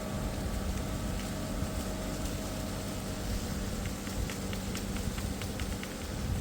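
LS compact tractor's diesel engine running steadily, with a run of light clicks near the end.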